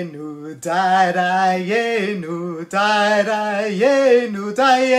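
A man singing unaccompanied, a tune in several short phrases of long held notes.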